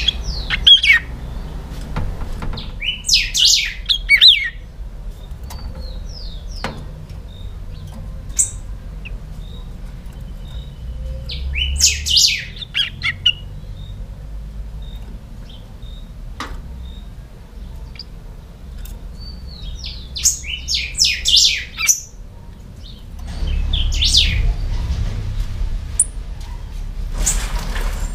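Young caged picahueso songbirds singing short phrases of quick, high chirping notes, a phrase every few seconds with pauses between.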